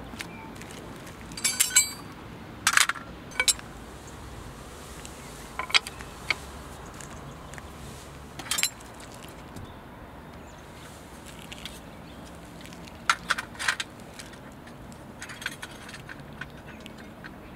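Sharp metallic clinks and knocks of a lug wrench and other wheel-change tools being handled and fitted onto a car's wheel bolts. They come in short clusters with pauses between, over a steady faint hiss.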